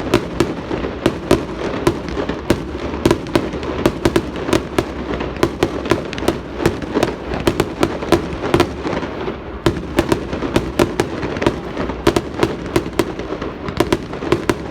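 Fireworks going off: a rapid, irregular string of sharp bangs and crackles, several a second, over a steady low rumble.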